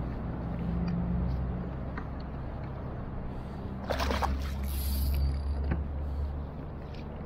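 Steady low motor-like hum, with a short burst of knocking and splashing about four seconds in as the landing net is worked in the water beside the kayak.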